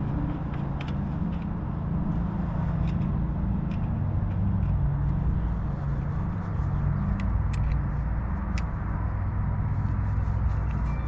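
A steady low engine drone, with a few faint light clicks over it.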